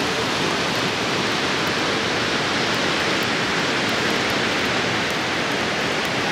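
Steady rushing of water, an even, unbroken roar of spray and flow with no pauses.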